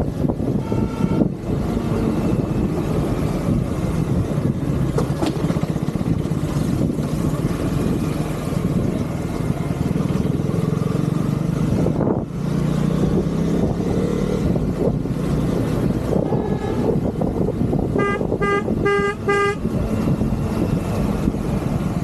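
Husqvarna Vitpilen motorcycle engine running steadily under way, with wind noise over it. A short horn toot sounds about half a second in, and a quick run of four horn beeps comes near the end.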